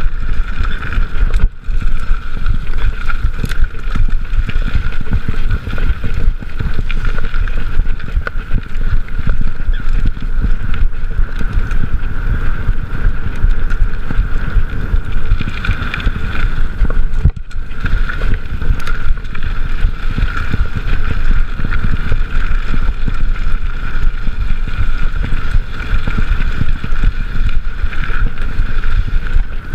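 Trek mountain bike ridden on a dirt trail, heard from a chest-mounted camera: steady, loud wind buffeting on the microphone over the rumble of the tyres, with a constant high-pitched hum.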